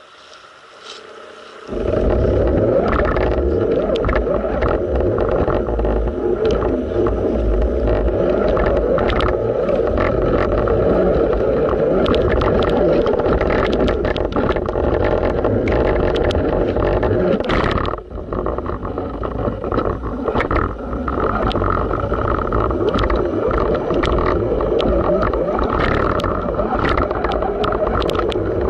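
Radio-controlled rock crawler driving through a shallow creek, heard from a camera mounted on the truck: its electric motor and drivetrain run steadily while water splashes and rocks clatter under the tyres, with many short clicks. The sound starts suddenly about two seconds in and dips briefly later on.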